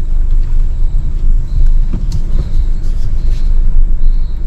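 Low steady rumble of an SUV moving slowly as it pulls into a parking spot, with a few short, faint high beeps about halfway through and again near the end.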